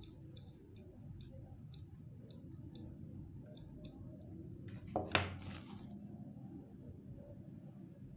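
Hands working with craft materials at a table: light clicks and rustles, then one louder clatter about five seconds in.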